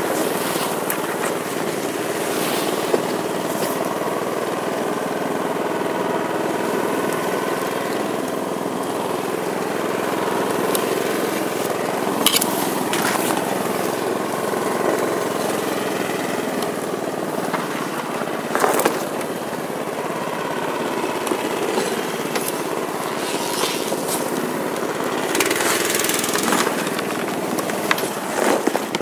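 The small engine of a motorised tow dog (a compact tracked snow tractor) running steadily under load as it hauls through deep snow. A few sharp knocks and swishes cut in as snow-laden branches strike the machine and rider.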